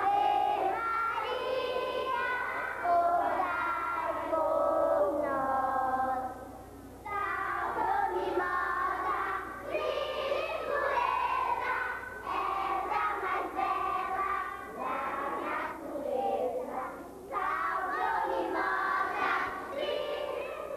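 A group of children singing together, with a short break in the singing about six seconds in.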